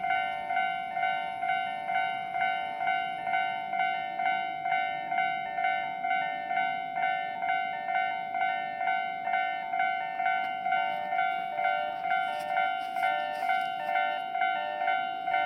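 Electronic level-crossing warning bell ringing steadily at about two strokes a second, two slightly different pitches alternating: the alarm of an active crossing with a train approaching.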